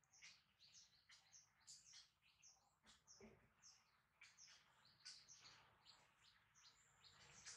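Faint, high-pitched chirping calls, short and irregular, about two or three a second.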